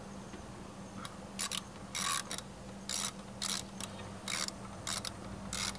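Socket ratchet snugging down lug nuts on a car wheel: the pawl clicks in short raspy bursts on each back-stroke, about every half second, over a steady low hum.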